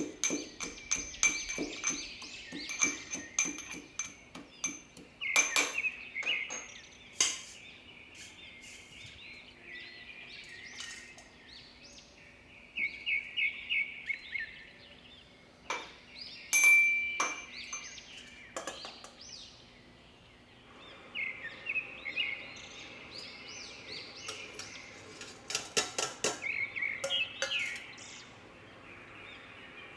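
Small birds chirping in repeated short trills, with scattered sharp clicks and taps in between.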